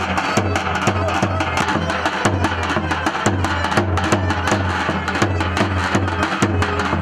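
Davul, the large Turkish double-headed drum, beaten with a heavy mallet and a thin stick: deep booms in a steady halay rhythm about twice a second, with quick sharp stick clicks between them.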